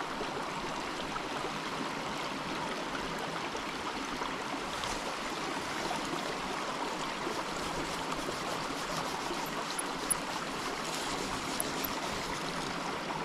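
Small mountain creek running shallow over rocks and riffles, a steady rush of water, with a few faint high ticks in the last few seconds.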